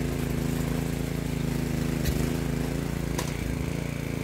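Small gasoline engine of a walk-behind rototiller running steadily while tilling soil, with two sharp clicks about two and three seconds in and a slight change in engine pitch after the second.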